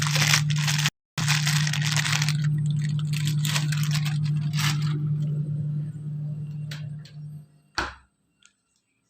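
Crackling, scraping handling noise over a steady low hum, which fades and cuts off with a sharp click near the end.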